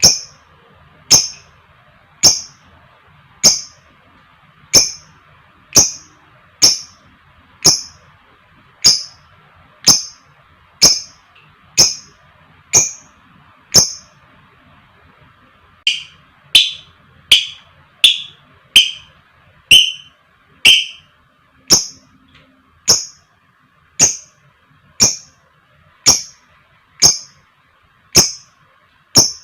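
Lovebird giving short, shrill, high-pitched calls about once a second. After a pause of about two seconds midway, a run of six lower-pitched calls comes before the higher calls resume.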